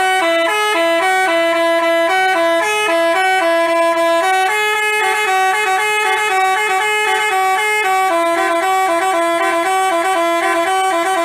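Bus basuri telolet horn playing a quick tune: two horn tones sound together and step between notes several times a second.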